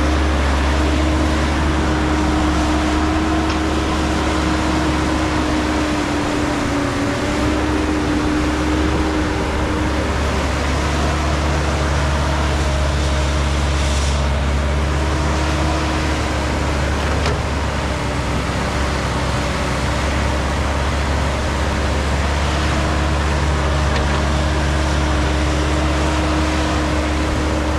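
Caterpillar 312 hydraulic excavator's diesel engine running steadily as the machine digs, with a steady whine riding over the engine's low drone.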